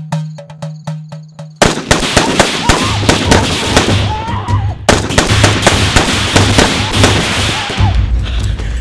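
Staged automatic 'burst fire' from firecracker-type pyrotechnics: a long, dense rattle of rapid cracks. It starts about a second and a half in, with a short break near halfway.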